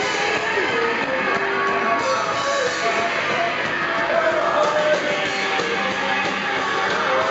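Live rock band playing loud garage-blues rock, with guitar, drums and a male vocal.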